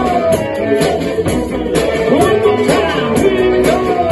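Live amplified ukulele band playing a rock-blues number, with plucked ukuleles and bass over a drum kit keeping a steady beat.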